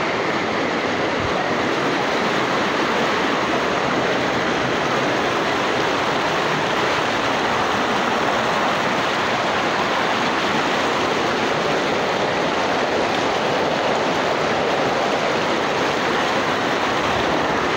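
A mudflow's flash-flood torrent of muddy water rushing past, a loud, steady, unbroken rush of turbulent water.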